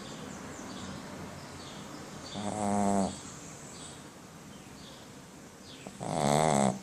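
A sleeping pet snoring: two drawn-out, pitched snores about three and a half seconds apart, the louder one near the end with a wavering pitch.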